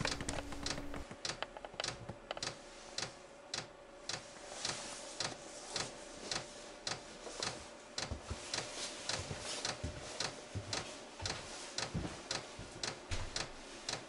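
Diesel heater's fuel dosing pump ticking while priming the fuel line, about two to three sharp ticks a second, somewhat uneven, over a faint steady hum.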